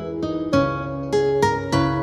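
Background music: a plucked string instrument playing a melody of quick notes that each ring and fade.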